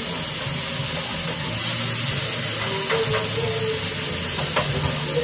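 Food frying in a pan on the stove, giving a steady sizzle, with a few small clicks of utensils. Music plays quietly underneath.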